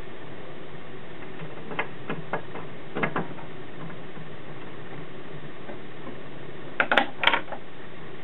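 Light metal clicks and taps as the changer spindle is handled and fitted into the centre of the Telefunken TW 509's record changer, with a louder pair of sharp clicks about seven seconds in as it seats.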